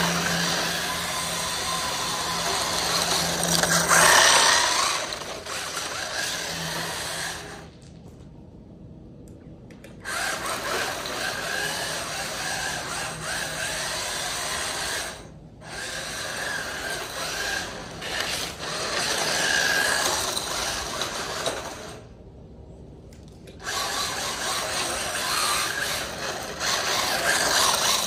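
Small brushed electric motor and gear train of an SG1603 mini RC drift truck running in bursts under throttle as it is driven, stopping twice for about two seconds.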